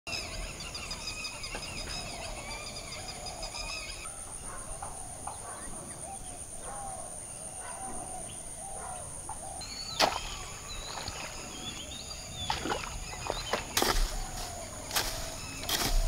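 Rural outdoor ambience: birds calling and chirping over a steady high-pitched drone, typical of insects in tropical vegetation. Several sharp knocks come in the last few seconds, and one about ten seconds in.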